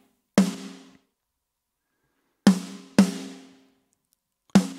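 Soloed rock snare drum from a mix, four separate hits, each ringing on with a tuned body tone that dies away over about a second. A snare sample with its attack removed by a transient designer is layered in, adding only sustain.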